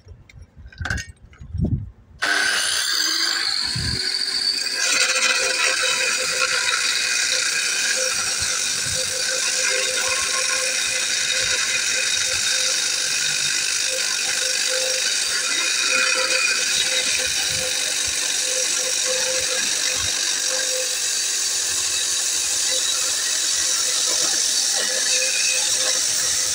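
A few knocks, then about two seconds in a handheld angle grinder with a diamond disc starts and cuts steadily into stone with a loud high-pitched whine and grinding.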